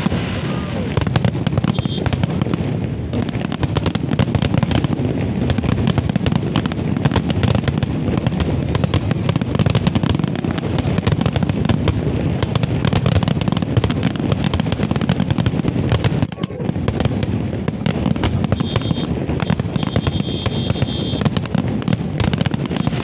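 Fireworks display: a dense, continuous run of bangs and crackles from aerial shells, easing briefly about sixteen seconds in.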